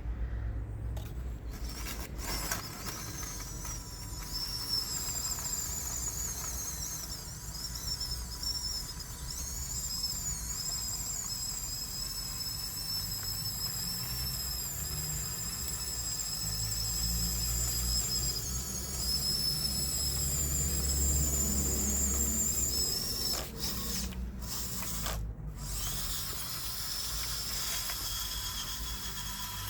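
Huina 1554 RC bulldozer's electric drive motors and gearboxes whining as it drives and pushes sand, the pitch rising and falling with motor speed. The whine cuts out briefly twice near the end.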